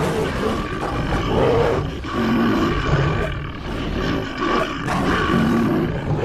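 Wild-animal sound effects: roars and calls repeating one after another without a pause.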